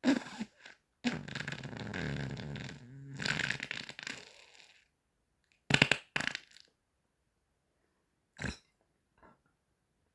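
Fart noises: a short one at the start, a long wavering one that runs for nearly four seconds from about a second in, then a few short blasts.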